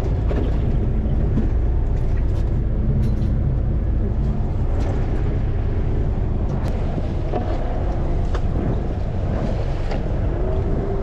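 Fishing boat's engine running steadily as a low rumble, with wind and water noise and a few faint ticks.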